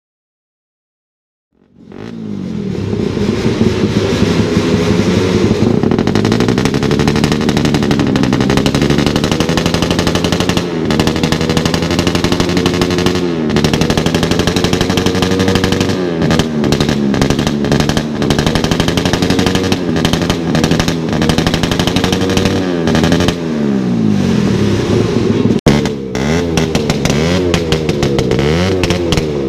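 Suzuki Raider 150 motorcycle with a loud open 'bombahan' aftermarket exhaust pipe, revved over and over so the exhaust note keeps rising and falling. It starts about two seconds in after silence. Near the end there is a sudden break, and then revving goes on.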